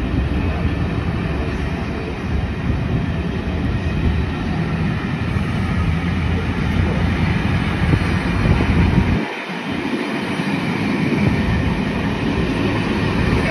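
Passenger coaches of a locomotive-hauled Pullman-style charter train running past, a steady loud rumble and clatter of wheels on the rails. The low rumble dips briefly about nine seconds in.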